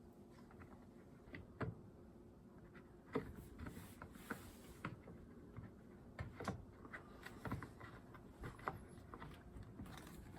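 Faint, scattered clicks and light knocks of the plastic top cover of an Echo CS-310 chainsaw being handled and fitted back onto the saw.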